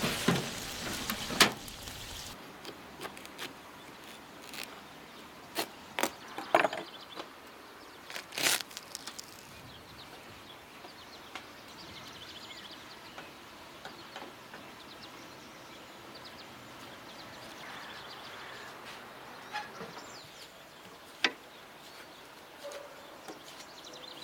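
Sharp knocks and clicks over a quiet outdoor background. Near the start a metal baking pan clatters into a wood-burning stove's oven. Later a knife cuts through a watermelon and taps on the board, with a few isolated sharp knocks.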